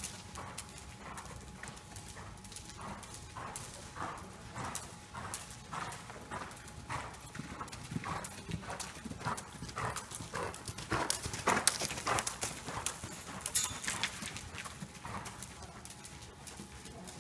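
A horse's hooves beating an even trot on soft sand arena footing, about two muffled beats a second, with a few sharper, louder strikes about two-thirds of the way through.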